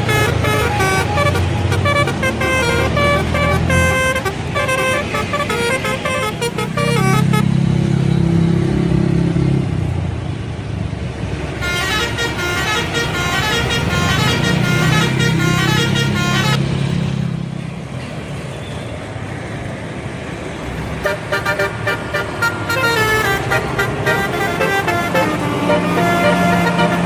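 Indonesian buses sounding telolet horns: multi-tone musical horns playing quick, jingly melodies in several bursts, with a deep, steady low tone under them about seven seconds in and again around fourteen seconds. The sound drops to a quieter stretch of traffic noise for a few seconds before the last burst of melody.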